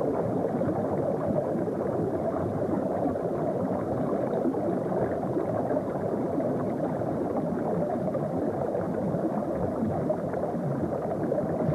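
Steady rush of churning water.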